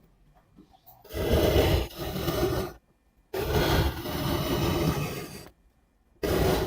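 Three long painting strokes scraping across a surface, each about two seconds, with short pauses between them.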